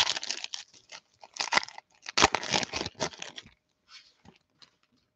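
Foil wrapper of a Panini football card pack being torn open and crinkled by hand: a run of crackling, rustling tears, loudest a little past two seconds in, that stops about three and a half seconds in, followed by a few faint ticks.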